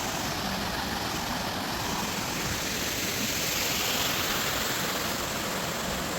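A small waterfall rushing steadily.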